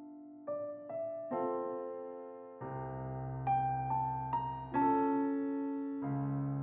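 Background piano music: slow, gentle notes and chords, each struck and left to fade.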